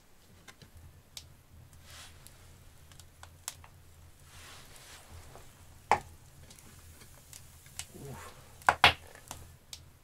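Small clicks and scrapes of a hinged metal stovetop waffle iron being closed and handled, with sharper metal clanks about six seconds in and twice near nine seconds. A faint steady low hum runs underneath.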